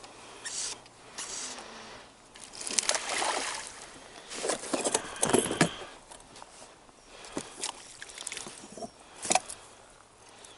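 Irregular water splashing and sloshing from a hooked fish thrashing at the surface as it is played and scooped with a landing net beside an inflatable float tube, the loudest splashes about halfway through and a sharp one near the end.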